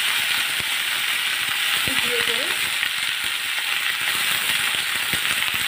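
Bottle gourd stems sizzling steadily in hot oil in a kadai, a continuous frying hiss, with scattered light clicks and knocks of the metal spatula against the pan as they are stirred.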